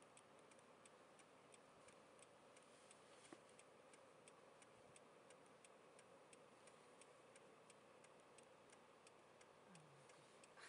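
Near silence: faint even hiss with soft, regular ticking at about three clicks a second.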